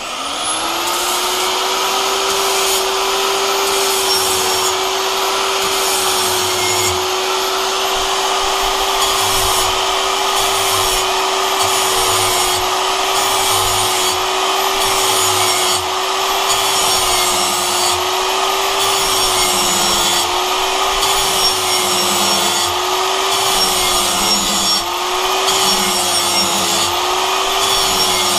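Angle grinder with a flap disc spinning up and then grinding the cutting edge of a steel lawn mower blade to sharpen it: a steady motor whine over a continuous rough grinding hiss. The whine wavers slightly in pitch in the later part as the disc is pressed on and eased off.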